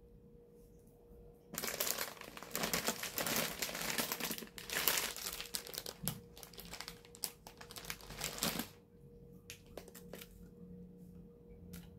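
Plastic packaging crinkling and rustling for about seven seconds, then a few light clicks and taps.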